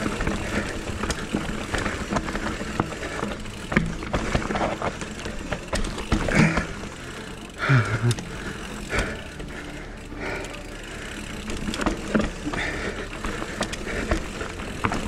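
Specialized Kenevo electric mountain bike descending a steep, rough trail: tyres crunching over dirt and roots, with the frame and drivetrain rattling through irregular knocks and clicks. The rider gives a couple of short grunts about halfway through.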